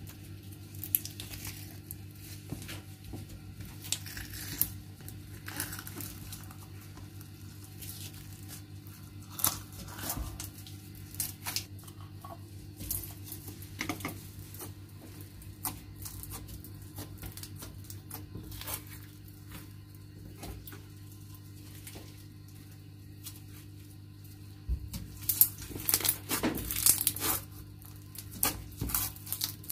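Green glitter slime worked with fingers, first tipped out of a plastic jar and then pressed and poked: sticky crackling and popping clicks, busiest near the end, over a steady low hum.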